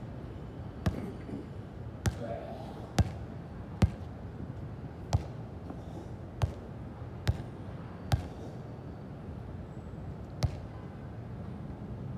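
A run of about nine sharp strikes landing at irregular gaps of about a second, each a single crisp smack.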